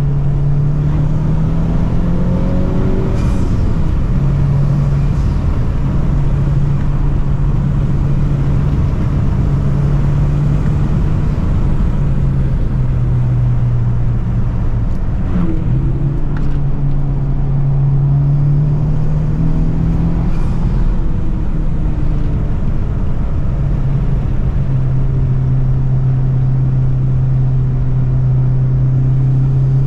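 Honda Civic Type R engine and intake noise under way, a steady engine note that climbs and drops several times with throttle and gear changes.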